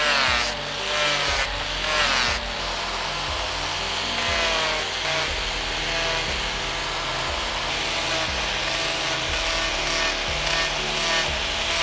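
Repeated back-and-forth rubbing strokes of a hand tool working the knife, a rasp with a wavering pitch that is strongest in the first couple of seconds, then steadier, over background music.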